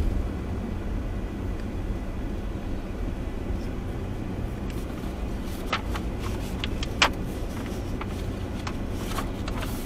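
Steady low rumble of a vehicle's engine and tyres heard from inside the cab while driving along a road, with a few faint clicks about halfway through and near the end.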